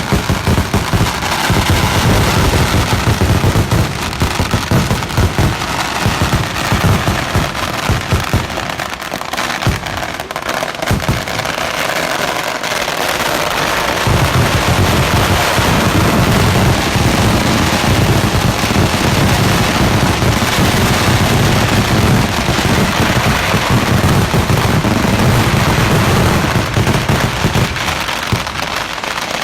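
Fireworks and firecrackers going off in a dense, rapid barrage of bangs. It thins out for a few seconds around the middle, then builds back into a continuous volley.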